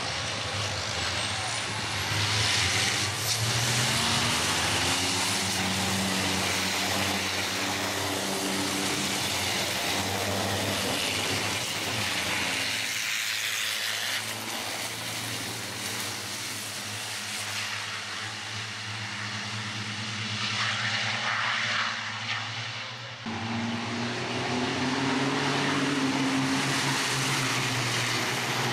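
Race trucks' turbo-diesel engines running hard as a pack of them goes by, the engine notes rising and falling over tyre and wind noise. The sound shifts abruptly about halfway through and again later.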